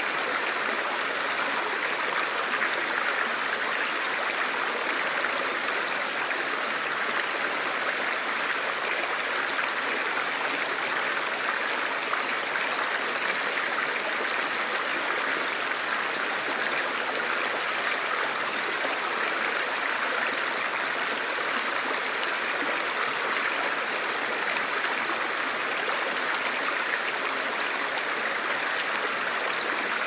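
Whitewater river rapids rushing over and around rocks: a steady, even rush of water with no breaks or changes.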